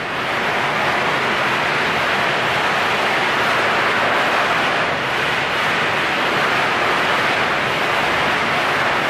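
Fireworks going off outside, heard as a loud, steady hiss that starts suddenly and holds at an even level, with no separate bangs.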